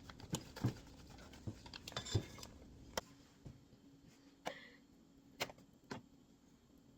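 Sparse light clicks and knocks from kitchen things being handled, a dozen or so over several seconds, growing fainter after about three seconds.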